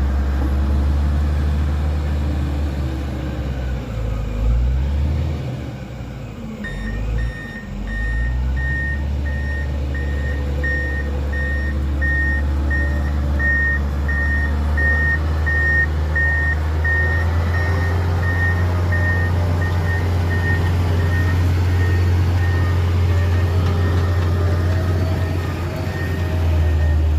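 Diesel engine of a heavy vehicle running with a deep rumble, its reversing alarm beeping about twice a second from several seconds in until near the end.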